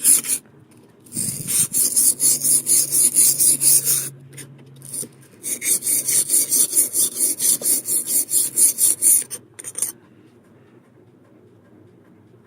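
Steel chisel blade rubbed back and forth on the fine side of a wet sharpening stone: quick, even scraping strokes about five a second, in two runs with a short pause between, stopping about ten seconds in.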